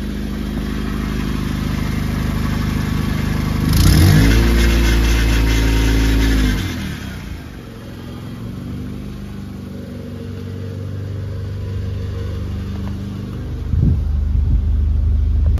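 Nissan Sentra engine idling, revved up once about four seconds in, held for a couple of seconds and let fall back to idle, with a shorter blip near the end. The engine has an exhaust leak, which the mechanic pointed out.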